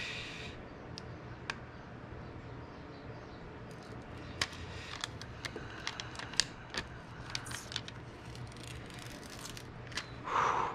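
Old window tint film being peeled off the glass after steaming, giving scattered light clicks and crackles over a faint steady low hum.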